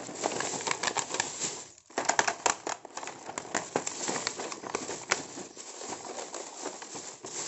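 A thin plastic carrier bag and a plastic blister-packed toy card crinkling and rustling as the card is pushed into the bag: dense, irregular crackles, with a brief lull and then the loudest crackling about two seconds in.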